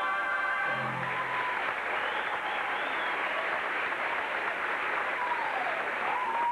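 Theatre audience applauding after the final chord of a stage musical number cuts off about a second in.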